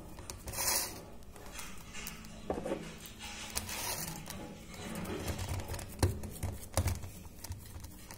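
Wet hands patting and pressing a layer of mashed potato into a metal baking pan: soft, uneven squishing and handling, with a few sharper taps, the loudest about six seconds in.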